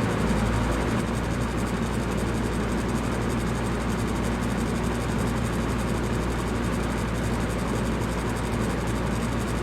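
Electric fan running steadily: an even rush of air with a low, constant hum underneath.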